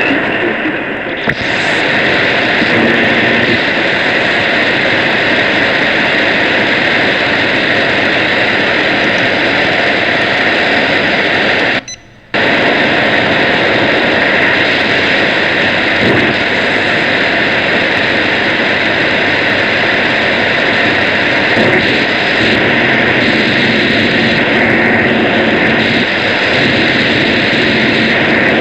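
Loud, steady shortwave radio noise and static covering a broadcast signal on a shortwave receiver, with no speech getting through. The hiss cuts out sharply for about half a second around the middle.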